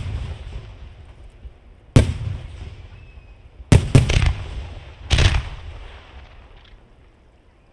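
Aerial firework shells bursting: loud booms about two, three and a half to four, and five seconds in, each trailing off in a long rumble, then dying away near the end.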